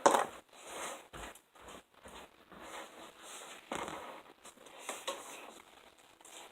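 A run of short, irregular scraping and rustling handling noises, with a sharp click at the start, as the cap or seal is worked off a plastic bottle of slime ingredients.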